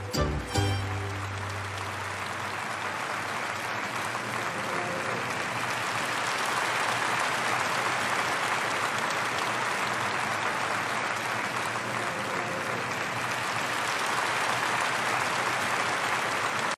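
A mariachi band's closing chord rings out and fades in the first second or two. An audience then applauds steadily to the end.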